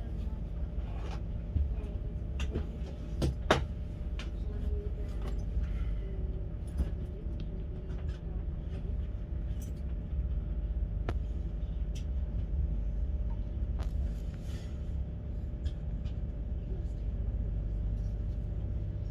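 Steady low rumble and hum of a Class 43 High Speed Train heard from inside a passenger carriage, with scattered sharp clicks and knocks, the loudest about three and a half seconds in.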